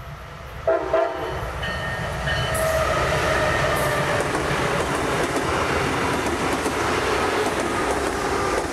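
Brightline test train sounding its horn about a second in, then the steady noise of the train running on the track builds and holds.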